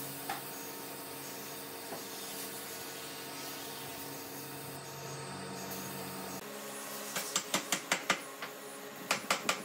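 Air-fed spray gun hissing as it sprays finish onto a wooden table, over a steady low hum. About three quarters of the way through comes a quick run of short, sharp bursts, and a few more near the end.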